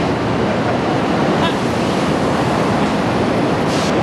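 Loud, steady din of a factory floor, an even roar with no distinct rhythm, with a short high hiss near the end.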